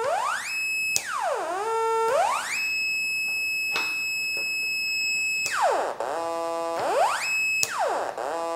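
littleBits Korg synth's buzzy tone, driven by an Arduino ADSR envelope set to reversed mode: it holds at its highest until the button is pressed, then swoops down to a low note, holds, and glides back up. This happens three times, with a long high hold in between.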